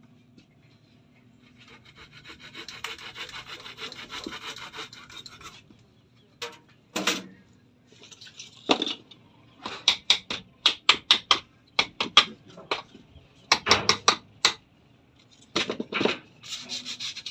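Hand saw cutting through dry root wood with a steady rasping run of strokes, followed by a series of short, sharp scraping strokes on the wood, several a second.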